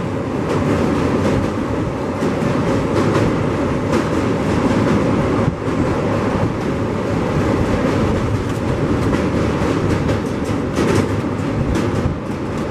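Passenger train coaches rolling past, loud, their wheels clattering over rail joints in irregular clacks over a steady rumble.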